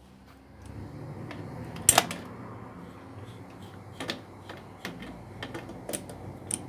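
Irregular metallic clicks and taps of parts and tools being handled on an opened electric pump motor, with the loudest knock about two seconds in.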